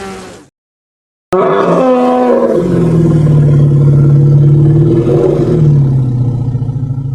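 A long, deep animal roar sound effect that starts about a second in, its pitch sliding down early on and again near the end. The tail of the previous effect fades out just before it.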